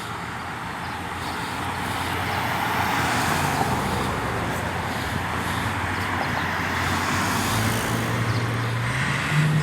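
A heavy machine's engine running and revving up, its pitch stepping up twice in the last couple of seconds, over a steady rushing noise.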